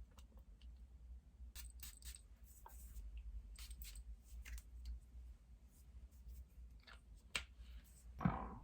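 Scattered light clicks and taps of small objects being handled, with a sharper knock about seven seconds in and a louder, brief thud-like sound near the end, over a low steady hum.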